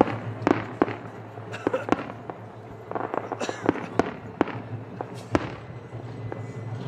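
Aerial fireworks bursting: a string of sharp bangs at uneven spacing, some in quick clusters, over a steady low hum.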